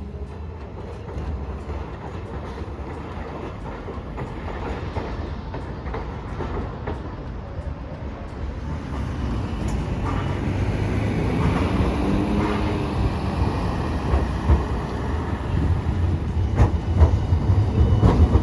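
Hiroshima Electric Railway streetcar drawing near and running past, growing steadily louder. A motor whine rises and falls about two-thirds of the way through, and the wheels clack over the rail joints near the end.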